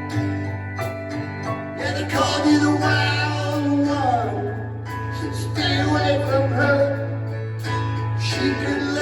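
Live rock band playing with a steady bass line; from about two seconds in, sung phrases come over the band.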